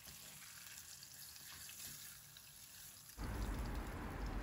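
Salmon steaks sizzling faintly in a frying pan, in olive oil and their own released fat, with a light crackle. About three seconds in, a low rumble comes in underneath.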